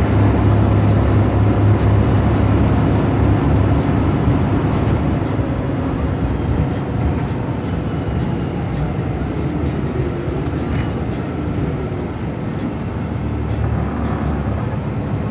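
Cabin sound of a Gillig Advantage transit bus under way, its Cummins ISL9 diesel and drivetrain giving a steady low drone with road noise. The drone gradually eases off, and a faint high whine slides down in pitch about halfway through.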